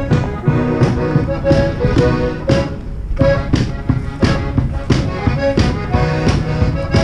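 Live band playing music with a steady beat, about two beats a second, under held pitched notes.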